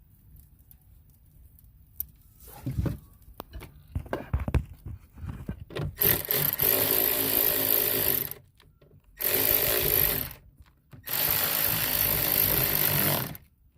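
Cordless drill/driver running in three bursts of one to two and a half seconds, tightening screws, with handling knocks before it. Its battery is running low but it still turns.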